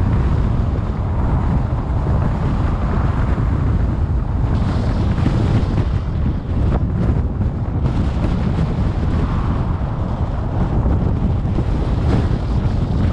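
Wind buffeting the microphone over a steady low rumble of road noise from a car driving along a highway.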